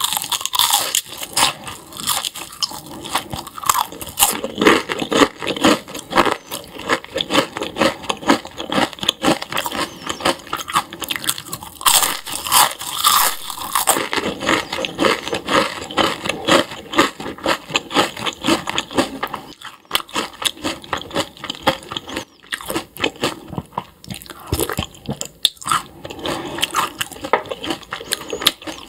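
Close-miked crunching and chewing of deep-fried anchovies: a long, dense run of crisp bites and chews.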